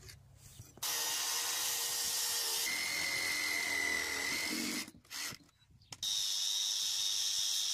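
Cordless power tools working a thick timber beam: a saw cutting through the wood for about four seconds, then, after a short break, an angle grinder running with a steady high whine as its disc is held against the beam's cut end.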